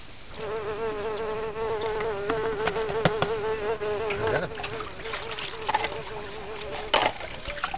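A fly buzzing in a steady, slightly wavering hum that stops about seven seconds in, with a few light clicks and a sharper knock near the end.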